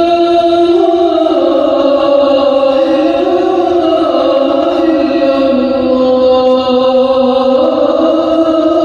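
Chanted singing: a voice holding long notes that glide slowly from one pitch to the next, without instruments or beat.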